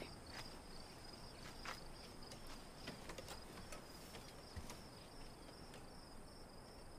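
Crickets chirping in a steady pulsing trill, faint night ambience, with a few soft scattered clicks.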